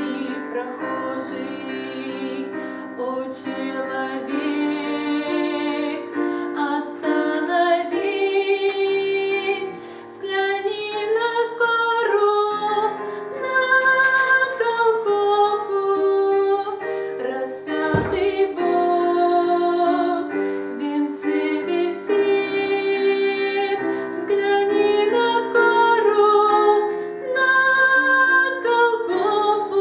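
Music: a woman singing a slow hymn melody with vibrato over keyboard accompaniment. Held keyboard chords open it, and the voice enters a few seconds in.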